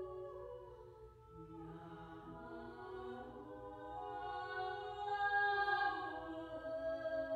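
Three women's voices singing long held notes that overlap in slow, shifting chords. Each voice moves to a new pitch in small steps. The sound thins out about a second in, then swells louder towards the middle.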